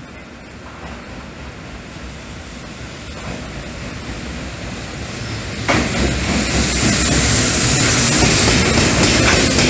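Container freight train hauled by a JR Freight electric locomotive approaching and passing close by. The running noise builds steadily, then jumps suddenly louder about six seconds in as the locomotive draws level, and stays loud with a hiss and a low rumble as the wagons go by.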